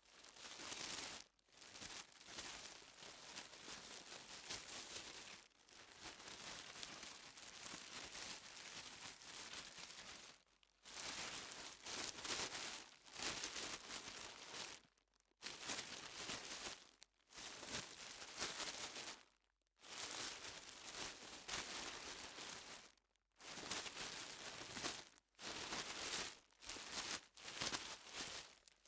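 Plastic bag being opened and handled, crinkling and rustling in a series of bursts lasting from about a second to several seconds, broken by short silent gaps.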